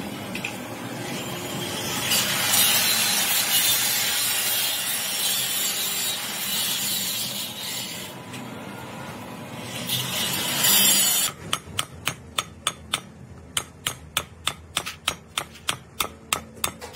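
A rough scraping and rubbing noise for about eleven seconds, then hammer taps starting suddenly at an even pace of two to three a second as a universal-joint needle-bearing cup is driven into a truck driveshaft yoke.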